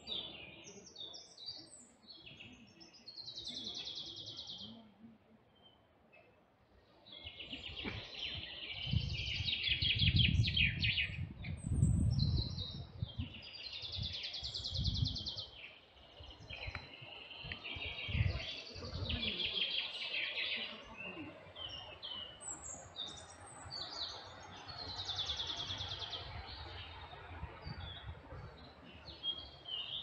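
Songbirds singing in a woodland, repeated phrases with fast trills, one after another. Low thuds join in from about eight seconds in and ease off after about twenty.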